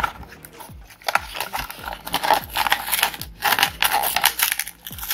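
Plastic blister pack and its foil-lined paper backing crinkling and tearing as they are pulled apart by hand. There is a sharp crackle at the start, then dense crackling from about a second in that ends just before the close.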